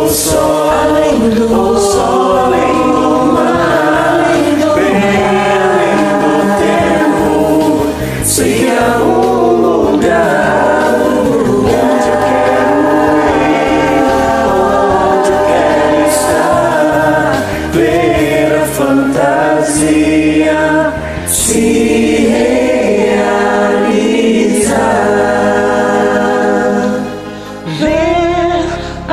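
Music: a group of voices singing together over instrumental backing, dipping briefly near the end.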